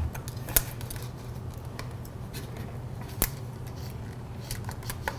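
Knife cutting on a cutting board: scattered light taps and clicks, two sharper ones about half a second and three seconds in, over a steady low hum.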